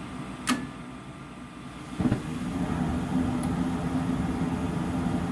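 Old Miller gas furnace lighting: the gas valve clicks open about half a second in, and the burners catch with a soft thump about two seconds in. The flame then settles into a steady burn over the hum of the inducer fan.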